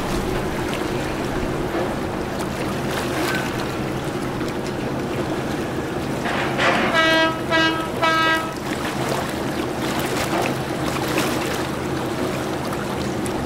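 A vessel's horn sounds three short blasts in quick succession over the steady low hum of a ship's engine.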